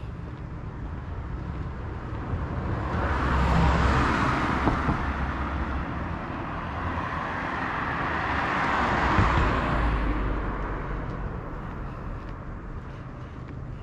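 Two cars passing by on the road one after the other, each a swell of tyre and engine noise that builds and fades, the first loudest about four seconds in and the second about nine seconds in.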